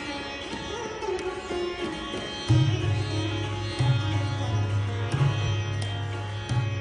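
Sitar and tabla playing together in Hindustani classical style. The sitar's sustained notes bend in pitch around the first second, over crisp strokes on the dayan. From about two and a half seconds in, deep ringing bayan strokes come every second or so, on a handmade tabla by Qasim Khan Niyazi & Sons.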